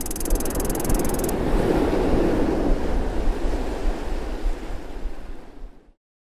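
Ocean-wave surf sound effect washing and swelling over a low rumble, with a fast high glittering shimmer in the first second; it fades and stops shortly before the end.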